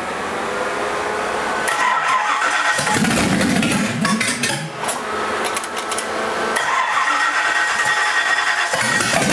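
Freshly rebuilt Chevrolet 327 small-block V8 being cranked by its starter on a cold first start with the choke set: it fires and runs for a few seconds and falters, is cranked again, and catches near the end.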